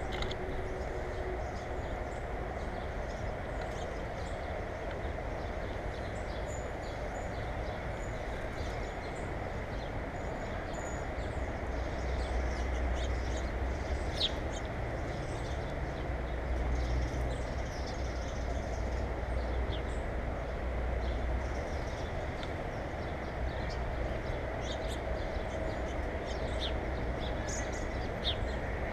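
Small birds giving faint, scattered short chirps over a steady background rumble that grows louder in the middle.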